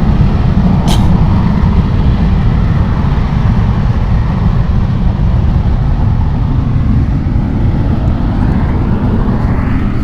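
Low, steady roaring rumble of Mount Bromo's active crater venting, with a brief click about a second in.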